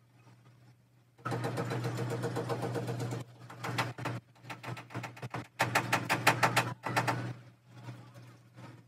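A hand scrubbing a plastic car headlight lens coated in white cleaning paste, in two loud spells of quick rubbing strokes with lighter rubbing between and after, over a steady low hum.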